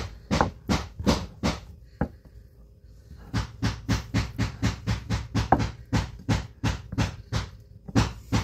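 Kitchen knife chopping cooked chicken on a wooden cutting board: a few slow strokes, then a quick, even run of knocks about four a second from about three seconds in.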